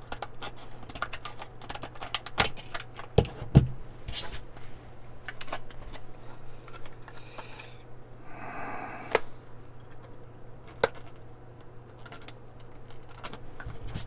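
Scissors cutting open a stiff plastic clamshell blister pack: a run of sharp snips and plastic crackles, with two louder knocks about three seconds in and a longer rasping stretch around seven to nine seconds in.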